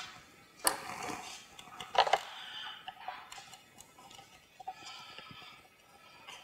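Hands working on a plastic 2015 Acura TLX bumper cover and its clips: light handling noise with scattered plastic clicks, a sharper click just under a second in and a quick cluster of clicks about two seconds in.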